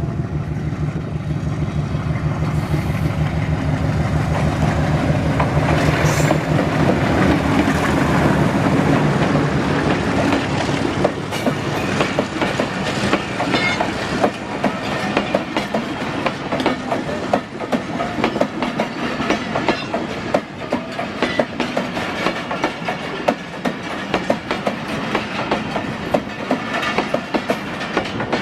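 HBU-20 diesel locomotive working a passenger train. Its engine runs with a steady drone for about the first ten seconds, then gives way to a fast, continuous clickety-clack of train wheels over the rail joints.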